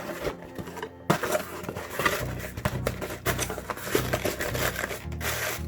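Clicks and rustling of small parts and packaging being handled while an OEM Glock magazine release is taken out of its box, over background music with a low pulsing beat.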